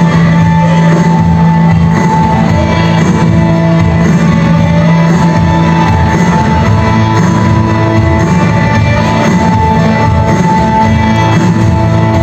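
Women's choir performing a song, with long notes held for several seconds and changing pitch now and then.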